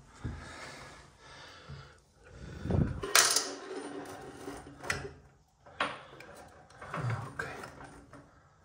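Clicks and knocks of a chrome basin mixer tap being handled and set into the tap hole of a ceramic basin, a few separate strikes with the loudest about three seconds in.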